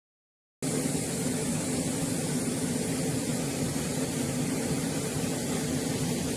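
Steady rumbling, hissing machine-like noise that cuts in abruptly out of dead silence about half a second in and holds level throughout.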